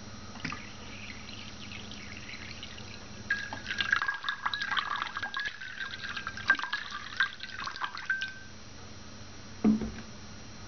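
Water poured from a spout onto a ceramic plate, starting as a faint trickle and becoming a busy, splashing pour for about five seconds before it stops. A single low knock follows near the end.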